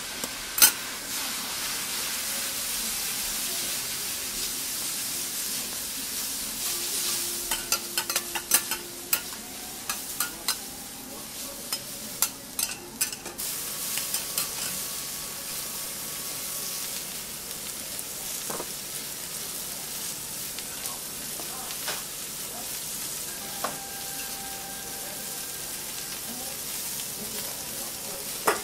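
Food sizzling steadily on a teppanyaki hot plate, with a metal spatula clicking and scraping against the plate in a quick run of strokes about a third of the way through.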